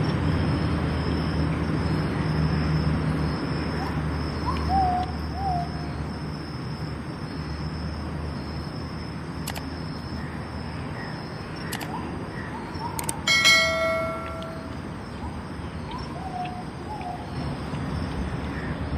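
Outdoor background noise with a steady high-pitched hum and a few short bird calls. About thirteen seconds in, a single bell 'ding' sound effect from a subscribe-button animation rings for about a second.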